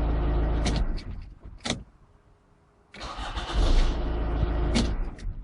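Hyundai Tucson CRDi's 2.0 diesel engine (D4EA) stops about a second in. About three seconds in it is cranked and runs for roughly two seconds, then cuts off again near the end.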